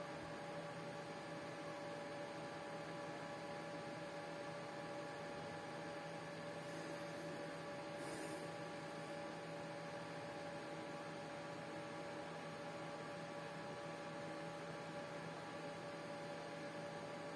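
Steady electrical hum made of several constant tones over a faint hiss. A brief faint high-pitched rustle comes about seven to eight seconds in.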